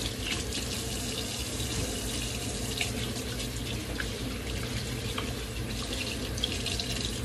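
Kitchen sink faucet running steadily as hands are washed under it.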